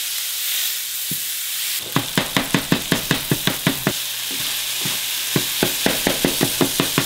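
Beef sizzling as it fries in a pan, with two runs of quick taps, about six or seven a second, of a spatula breaking it up against the pan: the first starting about two seconds in, the second shortly before the end.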